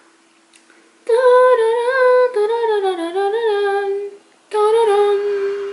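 A woman humming a tune with her lips closed, in two long phrases, the second starting about four and a half seconds in.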